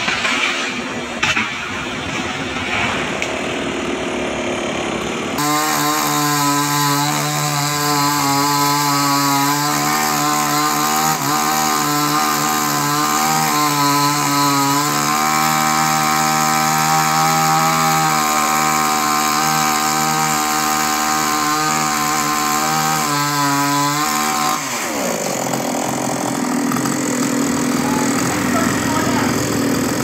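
Two-stroke gas chainsaw running at high throttle while cutting a tree limb. Its engine note holds steady for long stretches, shifting as it works through the wood, then drops away about 25 seconds in.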